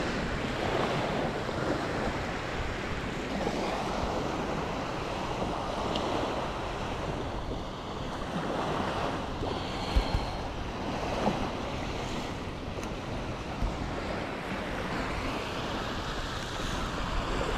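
Wind rushing over the microphone with the wash of sea water and waves, steady throughout, with a few light knocks about ten to fourteen seconds in.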